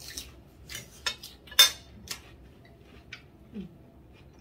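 Metal cutlery clinking on ceramic plates as people eat: a handful of short, sharp clinks, the loudest about a second and a half in.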